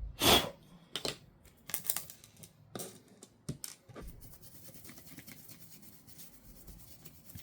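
A brief rushing noise of about half a second, then a scatter of light clicks and taps, from cleaning and handling the opened MacBook's parts.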